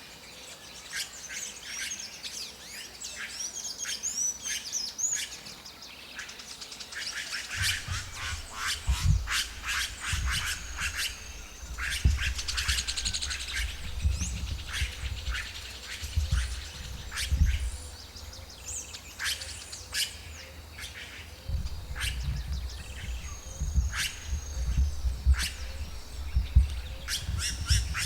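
Red-rumped caciques calling: a busy run of short, sharp chirps and clicks mixed with curved whistled notes. A low rumble comes and goes under the calls from about a quarter of the way in.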